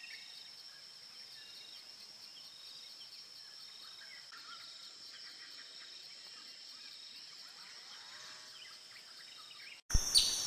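Forest ambience: a steady high insect drone with scattered bird calls. A short, loud burst near the end.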